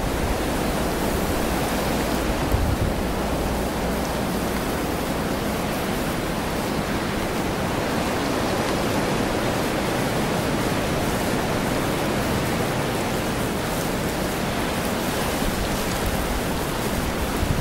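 Steady wind rushing as an even hiss, with a brief low buffet on the microphone about two and a half seconds in.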